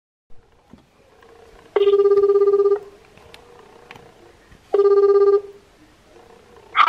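Japanese telephone ringback tone heard through a smartphone's speakerphone: two rings of a low, rapidly warbling tone, about three seconds apart, the second a little shorter than the first.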